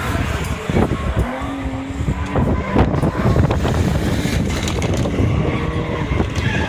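Rallycross cars' engines running hard on the track, the pitch rising and falling as they rev, with a few sharp cracks.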